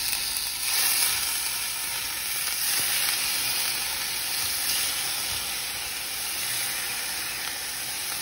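Strips of marinated steak sizzling steadily in a hot stainless steel skillet with garlic and onion as each piece is laid in.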